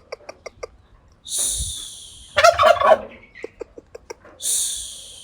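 A turkey gobbling once, a loud rapid rattling call about halfway through. Runs of short pitched notes, about six a second, come before and after it, and there are two bursts of high hiss.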